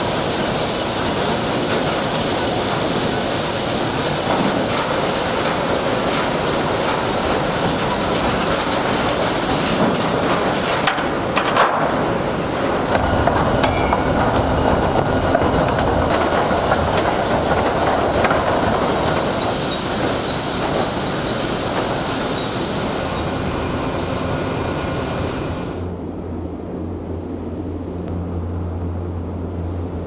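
Modern sawmill lumber-handling machinery running: chain conveyors and rollers carrying boards, a loud steady mechanical clatter with a thin high whine in it. About 26 seconds in the clatter falls away to a lower, steady hum.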